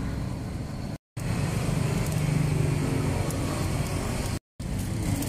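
Street traffic, engines running steadily in a low hum, broken twice by a brief drop to silence, about a second in and near the end.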